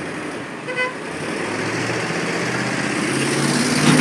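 UPS package delivery truck driving up and pulling in to the curb, its engine hum growing steadily louder as it comes close.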